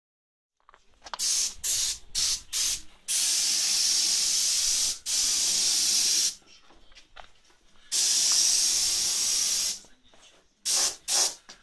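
Gravity-feed spray gun spraying primer, its compressed air hissing. It starts with several short bursts, then runs in long passes of two to three seconds, and ends with short bursts again.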